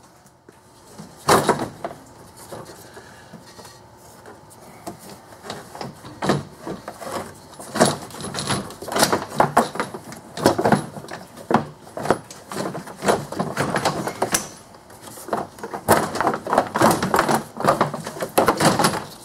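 Radiator shroud and electric cooling fan being worked up and out of a pickup's engine bay: irregular knocking, scraping and rattling, with a sharp knock about a second in and busier handling from about six seconds on.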